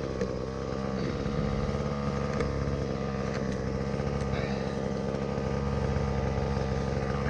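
An engine running steadily at an even idle, with a few faint clicks over it.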